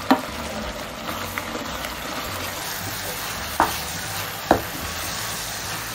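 Bukayo (coconut, sugar and milk filling) sizzling in a nonstick frying pan as it is stirred and cooked down until dry. A wooden spoon scrapes through it, with a few sharp knocks against the pan: one at the start and two a little past halfway.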